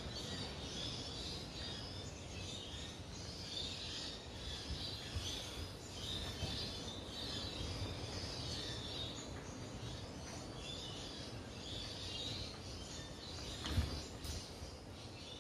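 Continuous high background chirping of wildlife, with a single soft low knock near the end.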